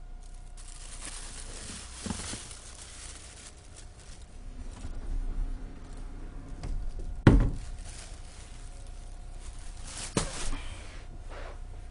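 Rustling and crinkling as things are rummaged through and handled, with a sharp knock about seven seconds in and a smaller one about ten seconds in.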